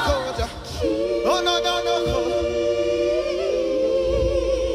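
Worship singing with little or no instrumental backing: voices hold one long sung note, then move on. A low bass comes in near the end.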